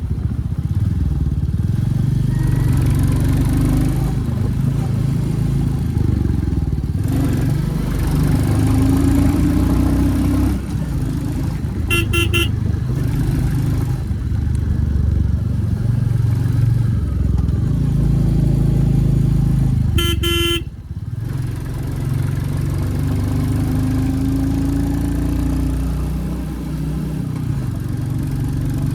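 2023 Royal Enfield Classic 350's single-cylinder engine running on the move, its pitch rising in stretches as it accelerates. A vehicle horn sounds in a few quick toots near the middle and again about two-thirds of the way through.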